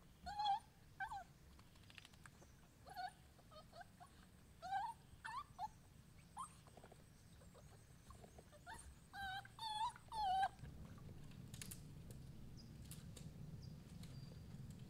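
Puppy whining in short, high whimpers that come in small groups of two to four and stop about ten seconds in. A few light clicks and knocks follow near the end.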